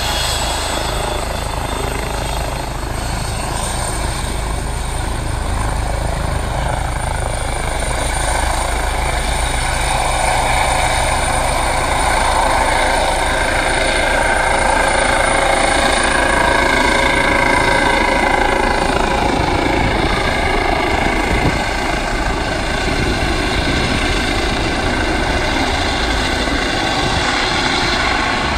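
Air ambulance helicopter taking off: turbine whine and rotor noise running steadily, growing louder through the middle as it lifts off and climbs overhead, with the engine tones shifting in pitch.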